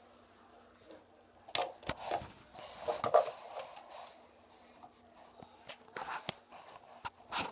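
Knocks, clicks and rustling from a phone being handled and moved about, in irregular short bursts, with a busier stretch in the first half and again near the end.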